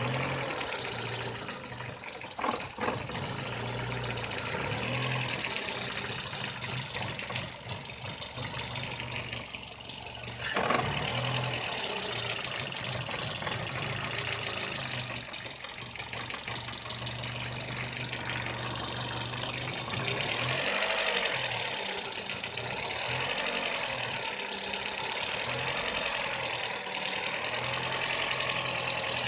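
Volkswagen Polo 6N engine idling unevenly, its low note wavering and stumbling: the rough idle fault the owner has not been able to solve. A sharp click sounds about two seconds in and another about ten seconds in.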